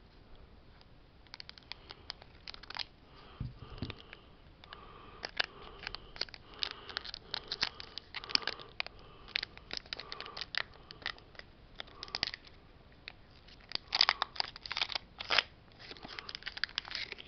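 Foil Pokémon booster pack being snipped open with scissors and handled, the wrapper crinkling and crackling in many short bursts, with a louder run of crinkles about fourteen seconds in.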